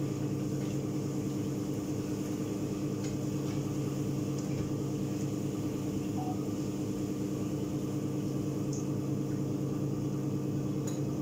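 Steady motor hum of a kitchen range hood's exhaust fan running over the stove, with a few faint clicks of a utensil against the frying pan.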